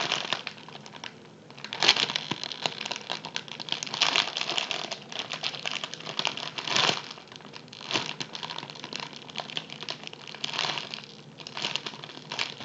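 Clear plastic packaging bag crinkling in irregular bursts as it is handled and pressed around an orange squishy toy inside it.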